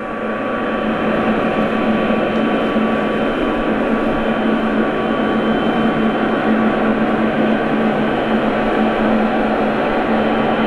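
Boeing 777-300ER's twin GE90-115B turbofan engines running at taxi power: a steady jet whine over a rushing roar, swelling over the first two seconds and then holding level.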